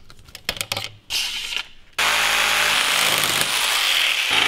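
A few light clicks and handling knocks, then about halfway in a cordless power saw starts suddenly and runs steadily, cutting through a metal bicycle handlebar with a loud hissing cut over the motor's hum.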